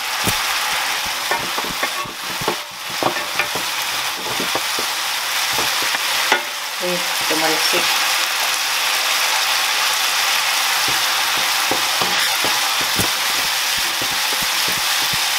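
Garlic and ginger paste sizzling steadily in hot olive oil in a frying pan, frying toward golden. A wooden spatula scrapes and taps against the pan as it is stirred, giving scattered clicks, mostly in the first half.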